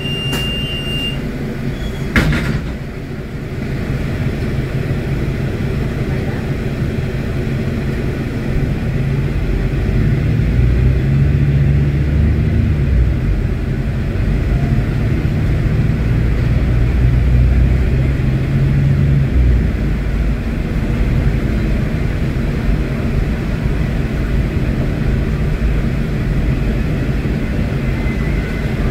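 Volvo D8K six-cylinder diesel of an articulated Volvo B8R bus, heard from inside the rear of the cabin, running with a steady low drone. It grows louder from about nine seconds in, as under heavier load, and eases off shortly before twenty seconds. A single sharp knock comes about two seconds in.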